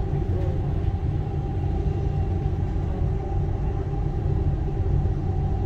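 Steady low rumble of a Dubai Metro train running between stations, heard from inside the cabin, with a faint steady hum above it.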